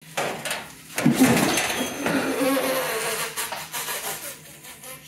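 Aerosol spray can spraying with a loud hissing, sputtering buzz that fades out near the end.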